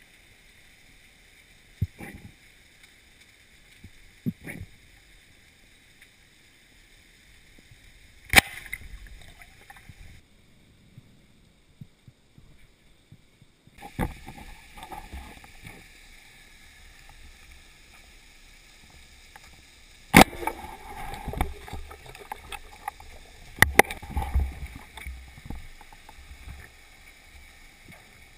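Underwater sound of a river recorded through a camera housing: a low steady hiss with rushing, gurgling water, broken by several sharp knocks, and louder churning water with a low rumble in the second half.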